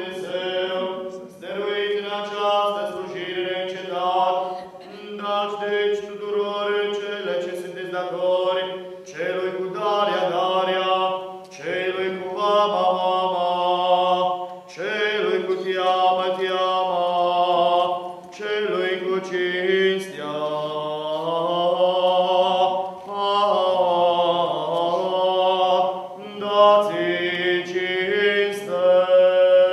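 Unaccompanied Orthodox liturgical chant: sustained sung lines that glide from note to note over a low held note.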